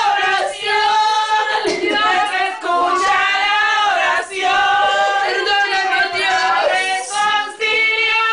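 Women's voices singing in long, wavering high tones during congregational prayer, one voice loudest, with other voices of the congregation faintly behind.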